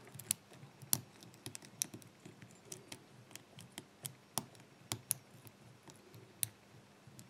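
Lock pick and tension wrench working in a brass padlock's keyway: small, irregular metallic clicks and ticks as the pins are set one by one, several a second at uneven spacing.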